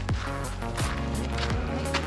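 Background music with a steady beat: a deep kick drum about every three quarters of a second under held chords and crisp cymbal hits.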